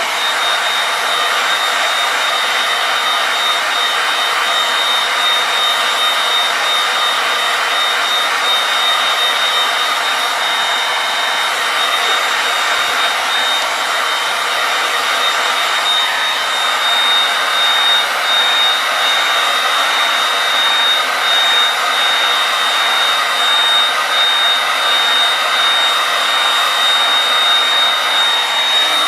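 Heat gun running steadily, blowing hot air to soften a sheet of HDPE plastic for moulding, with a thin high whine over the rush of air.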